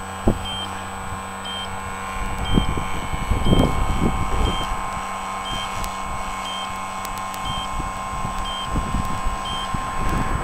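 Push boat's motor running with a steady hum, a short high beep repeating about every 0.7 seconds over it. A few low knocks and splashes come a couple of seconds in and again near the end.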